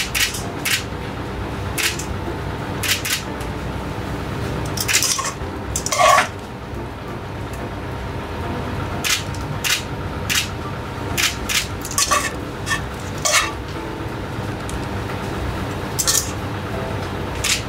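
Aluminium saucepan and metal utensil clinking and scraping as pasta in tomato sauce is plated into a ceramic bowl: irregular sharp clinks, with one louder ringing clang about six seconds in, over a steady low hum.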